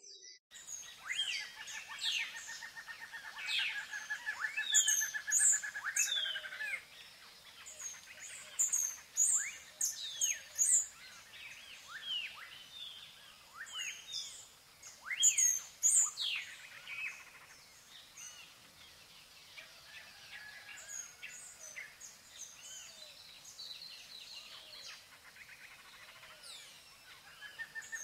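Several birds chirping and calling: quick whistled notes that sweep downward, louder in a few clusters, with a rapid buzzy trill in the first few seconds.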